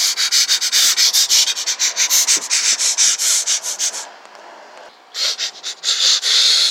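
Fast, even scratchy rubbing strokes, about five a second. They stop for about a second partway through, then start again.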